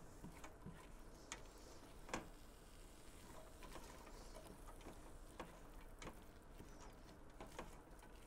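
Faint, irregular clicks and taps of a stirring utensil against a stainless steel pot as onions and bacon are stirred, the sharpest tap about two seconds in.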